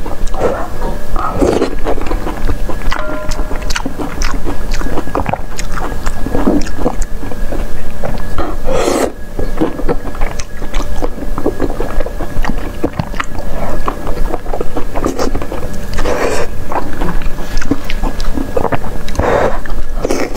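Close-miked wet chewing and slurping of a long, soft piece of intestine pulled from a spicy soup, with many small sticky mouth clicks. There are louder slurps about nine seconds in, at about sixteen seconds, and again near the end.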